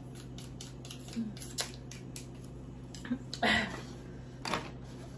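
Light clicking and rustling of food packaging being handled and opened at a table, with louder rustles about three and a half and four and a half seconds in.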